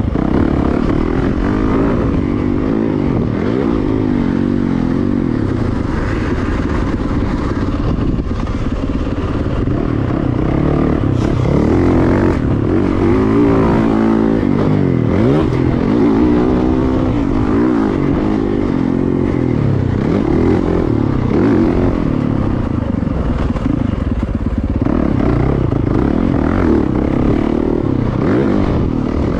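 Yamaha YZ450FX's 450 cc single-cylinder four-stroke engine revving up and down as the dirt bike is ridden around a motocross track. The pitch rises and falls again and again with throttle and gear changes.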